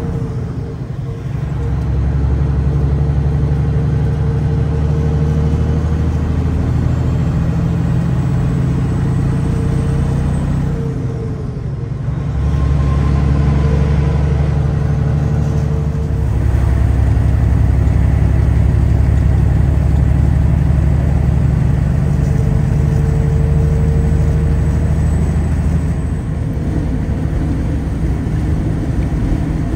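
Diesel truck engine running steadily at highway speed, heard from inside the cab as a strong low hum. It eases off briefly about eleven seconds in and then picks up again.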